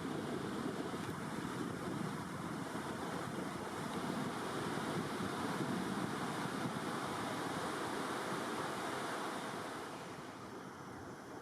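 Steady rush of water at a river weir, a continuous noise that drops somewhat in level near the end.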